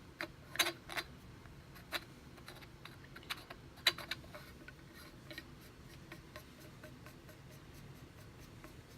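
Metal parts of a Rugged Surge suppressor clinking and tapping as they are handled and put together, with a run of sharp clicks in the first four seconds and fainter ticks after.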